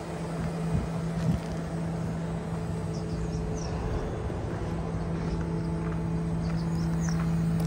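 2006 Isuzu Giga concrete mixer truck's diesel engine idling: a steady low rumble with a constant humming tone.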